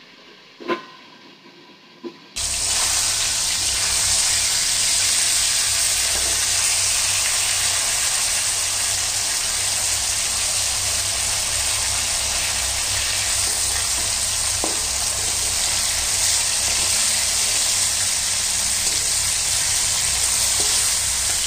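Fish pieces frying in hot oil in a kadai: a loud, steady sizzle that starts abruptly about two seconds in, with a steel spatula stirring and turning the pieces. Before the sizzle come two light knocks.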